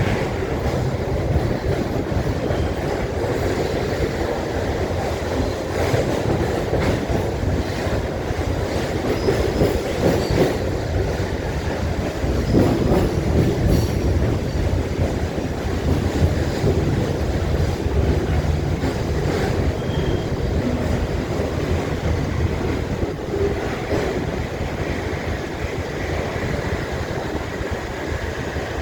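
Freight train running, heard from aboard a wagon: a continuous loud rumble and rattle of wheels on track, with scattered clicks and faint high squeals from the wheels.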